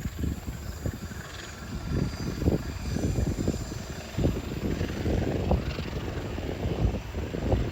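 A long train passing close by: a low rumble with uneven, repeated thumps of its wheels running over the track.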